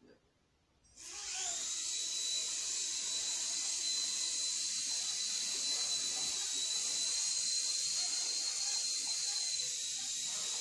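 Mini RC helicopter's small electric motors spinning up about a second in, with a quickly rising whine, then a steady high whine with rotor hiss as it flies.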